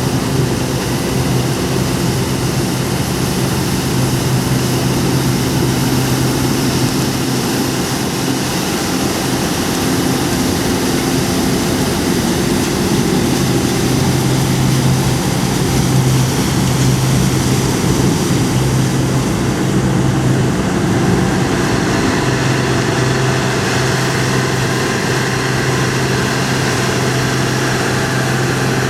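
Combine harvester running steadily at work, a continuous engine and machinery drone with a strong low hum; the tone shifts slightly about two-thirds of the way through.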